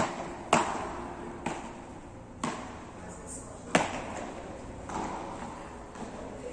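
Beach tennis paddles hitting the ball in a rally: sharp pops about a second apart, the first, the serve, the loudest, others fainter, each with a short echo in a large hall.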